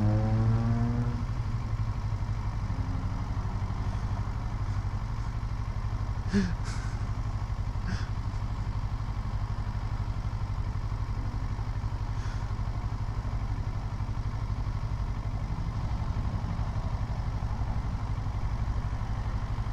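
2016 Kawasaki Versys 650's parallel-twin engine idling steadily, with a few short clicks about six and eight seconds in.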